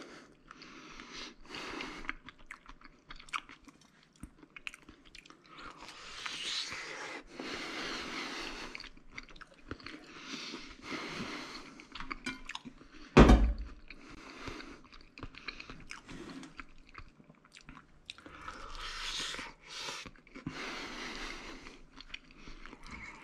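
A person biting into and chewing a piece of egg-and-cheese quesadilla, with crunching from the toasted tortilla, in irregular spells. About halfway through comes one sharp, loud knock.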